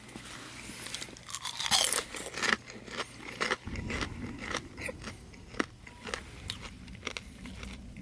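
Irregular close crunching and clicking, loudest about two seconds in.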